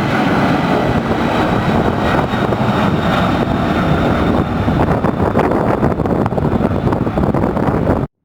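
Boeing 747-400 jet engines in a loud steady roar with a thin high whine over it, passing close on its landing. The sound cuts off suddenly near the end.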